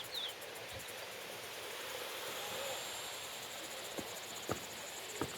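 Insects trilling in a fast, high-pitched pulse, with a bird's short falling chirps at the very start and a few sharp clicks near the end.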